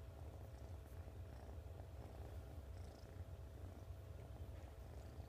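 Kitten purring steadily as a hand strokes it: a faint, continuous low rumble.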